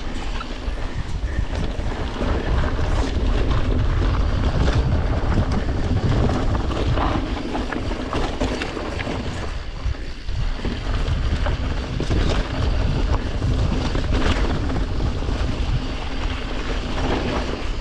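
Wind rushing over the microphone of a mountain bike being ridden on a rough trail. A heavy, steady rumble with tyre noise and scattered clicks and rattles from the bike.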